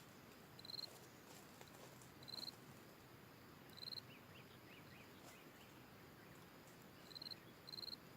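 An insect chirping: short buzzy chirps repeated at uneven intervals of about one to two seconds, five of them, over a quiet background hiss, with faint high twittering near the middle.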